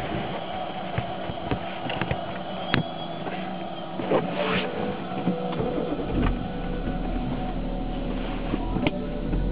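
BMW E46 330xd's 3.0-litre straight-six diesel running at low speed, heard from inside the cabin, with scattered sharp clicks. A deeper low rumble joins about halfway through.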